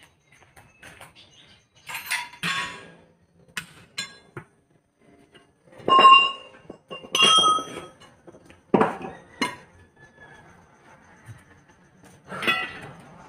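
Steel tire irons clanking against the steel wheel rim of a ten-wheeler truck tire as it is levered by hand: an irregular series of sharp metallic clanks, several of them ringing briefly, the loudest about six seconds in.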